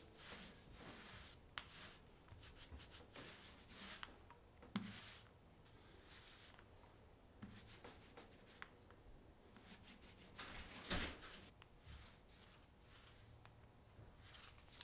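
Faint, repeated swishing strokes of a small paint roller rolling wet paint over a wooden boat hull, with the strongest stroke about eleven seconds in.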